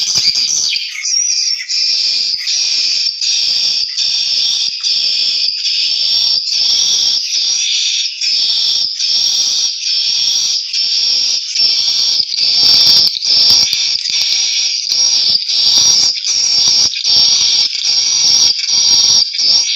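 Edible-nest swiftlets twittering: a dense, unbroken high-pitched chirping chorus that pulses about twice a second.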